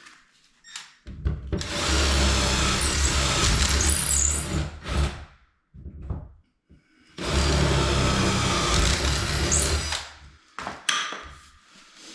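Power drill boring holes for a cabinet handle in a vanity door, run twice, about four seconds and then about three seconds, with short knocks between and after.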